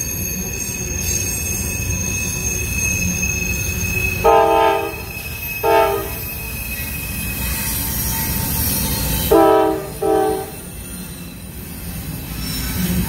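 Freight trains rumbling past, with a thin steady wheel-flange squeal over the first few seconds. A diesel locomotive's multi-note air horn sounds twice about four seconds in and twice more about nine seconds in, each time a longer blast then a shorter one.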